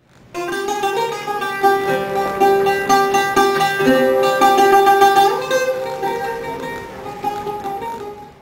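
A short piece of plucked guitar music with ringing notes and chords. It starts just after the beginning and fades away near the end.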